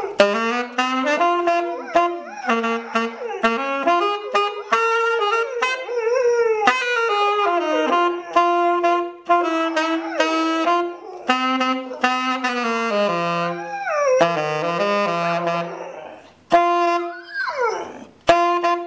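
A saxophone playing a slow tune of held notes while a dog howls along, its wavering, sliding howls rising and falling over the notes, with one long falling howl near the end.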